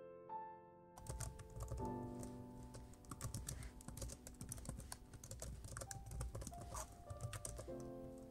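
Rapid typing on a laptop keyboard, a dense run of clicks starting about a second in, over background music.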